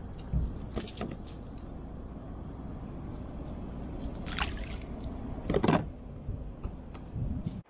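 Small clicks and knocks of pliers working a hook out of a bream's cheek, and a splash about five and a half seconds in as the fish goes back into the water.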